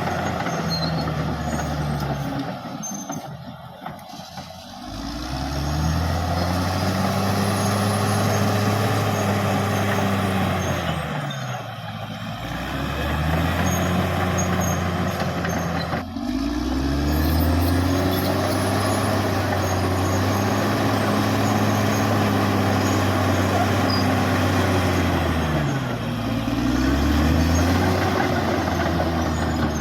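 Caterpillar D6R XL bulldozer's diesel engine working hard while pushing sand: its note climbs, holds and drops back about four times as the load comes on and off. Under it runs a steady clatter, with a faint high whine.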